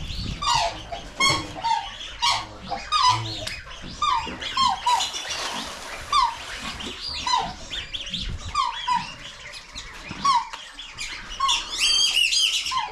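Mixed poultry and waterfowl calling. A short falling call is repeated roughly once or twice a second over many higher chirps and squawks.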